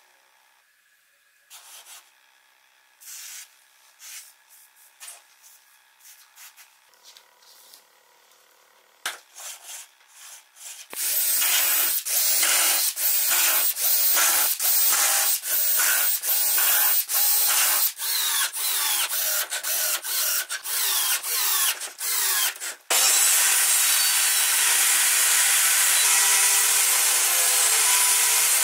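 Light knocks and rubbing of wooden parts being handled, then a cordless drill run in quick repeated bursts, drilling into a wooden board. For the last several seconds a power tool runs continuously at full speed.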